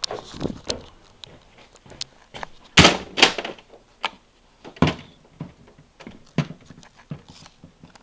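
Irregular knocks, bumps and rustles of a handheld camera being moved and handled, with two loud thumps about three seconds in and another near five seconds.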